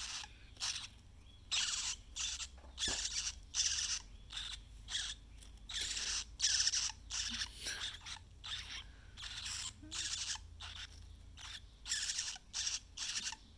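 A nestling bird, about 11 days old, gives a run of short, harsh, hissy squawks, roughly one or two a second.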